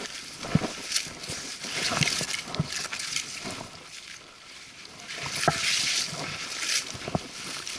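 Twigs, conifer boughs and leafy brush swishing and scraping against the hiker and the camera while he pushes through thick undergrowth. About five sharp knocks cut through the rustling.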